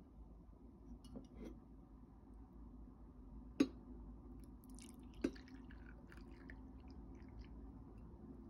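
Coffee poured from a glass server into a glass cup: a faint liquid trickle, with two sharp glass clinks about three and a half and five seconds in.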